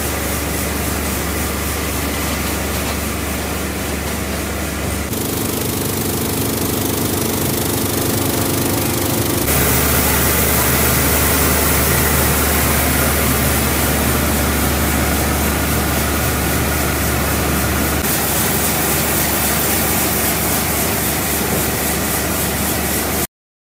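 Processing-line machinery running steadily: a constant low hum under a rushing mechanical noise. The sound shifts abruptly about five, nine and eighteen seconds in, and cuts off suddenly near the end.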